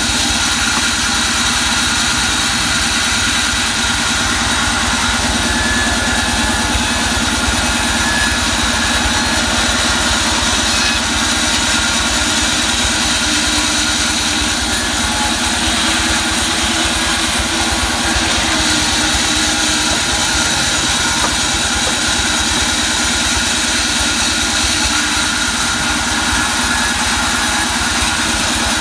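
Vertical band saw running steadily while mahogany boards are fed through it and cut, a continuous machine sound with a steady whine and hiss and no pauses.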